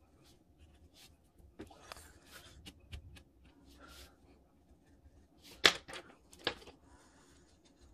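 Quiet scratching of a Sharpie felt-tip pen drawing short strokes on a watercolour card, then two sharp clicks a little under a second apart as the pen is put down among other pens on the desk.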